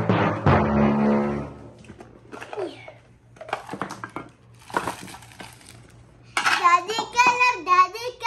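Wrapped sweets tipped out of a box onto a table, rustling and clattering in short bursts. A loud musical sting opens the stretch and cuts off after about two seconds, and a child's voice starts in a sing-song way about six seconds in.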